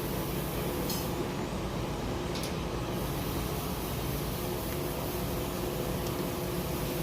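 A steady mechanical hum at an even level, with two faint ticks about a second and two and a half seconds in.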